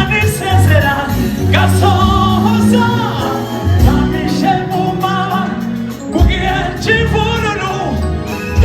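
Gospel choir singing over backing music with a strong bass line.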